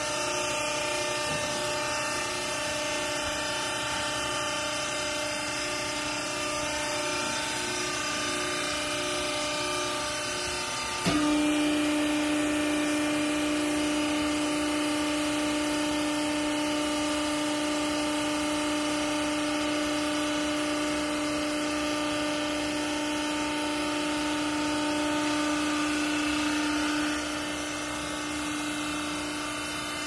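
Hydraulic power unit of a vertical clothes baler running with a steady hum. About eleven seconds in, a click, and the pump's note steps up to a louder steady tone as the press works; it drops back near the end.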